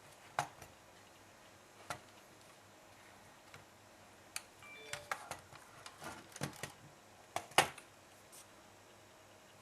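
Scattered light clicks and taps at irregular intervals, bunching up in the second half, with the sharpest click about seven and a half seconds in.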